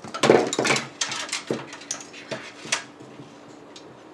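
Plastic case fans and mounting hardware being handled, giving a series of sharp clicks and clacks, densest in the first second.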